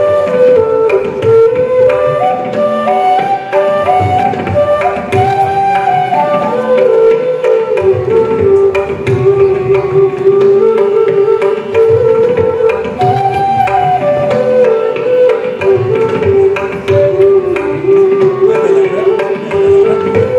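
Ensemble of bansuri (Indian bamboo flutes) playing a melody in unison in Raag Hamsadhwani, with tabla playing a steady stream of strokes beneath them.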